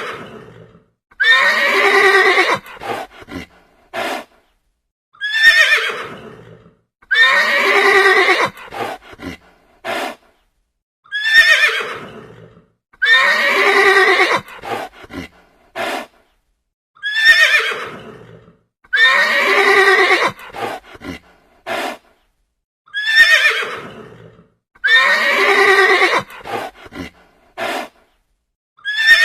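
A horse whinnying, the same recorded neigh repeated over and over about every six seconds. Each round is a short sharp call followed by a longer whinny and a few short clicks.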